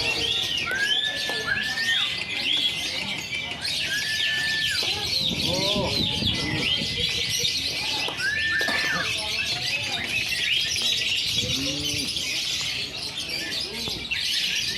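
A chorus of many caged lovebirds chattering together in a dense, continuous stream of rapid high-pitched chirps and trills, with a few separate arching calls lower down.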